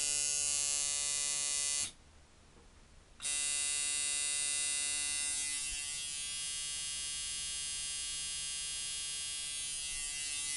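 1998 Mickey Sharpz micro-dial coil tattoo machine running with a steady buzz. It stops about two seconds in and starts again about a second later.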